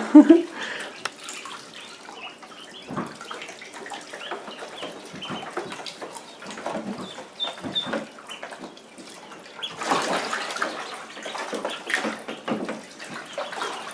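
Water splashing and sloshing in a shallow plastic kiddie pool as a group of ducklings paddle about, with high duckling peeps now and then. A short loud burst of a person's voice comes right at the start.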